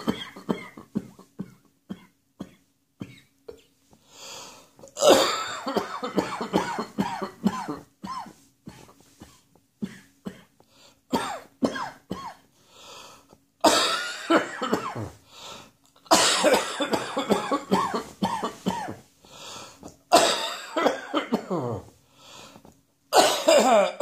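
A person coughing from spring allergies, in repeated fits of several coughs each, with short single coughs between the fits. The loudest fits start about five seconds in and again several times in the second half.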